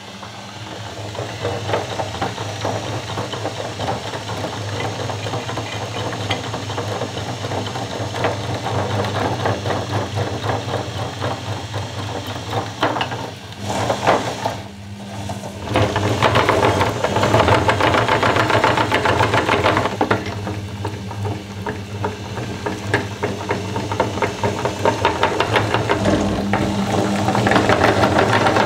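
A motor-driven meat grinder running with a steady hum while it grinds chocolate bars, a dense rapid crackling rattle over the motor. It dips briefly about halfway through, then runs louder to the end.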